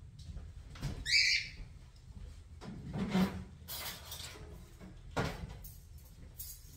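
Kitchen handling noises: a few brief knocks and clinks of utensils being set down and picked up, and a short, high, falling squeak about a second in, which comes again near the end.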